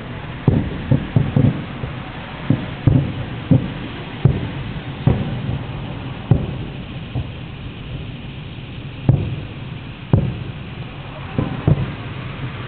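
Aerial fireworks shells bursting at a distance: a run of low booms at irregular intervals, several in quick succession in the first second and a half, with steady background noise between them.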